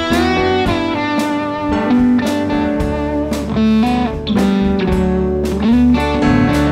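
Live rock band playing an instrumental passage: an electric guitar lead with bent notes over drums and bass.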